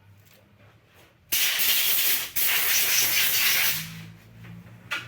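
Pressurised spray hissing in two blasts: the first about a second long, then after a brief break a second, slightly longer one, while engine parts are cleaned.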